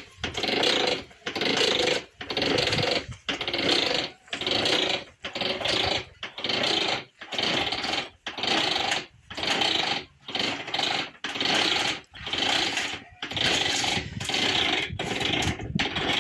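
Hand-cranked roller grape crusher with meshing gears, mounted over a plastic barrel, crushing grapes: a rough mechanical grinding noise in bursts about once a second, one with each turn of the crank.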